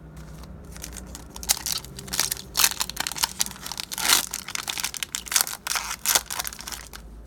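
Crinkling and tearing of a foil trading-card pack wrapper being ripped open by hand, an irregular run of crackles for several seconds.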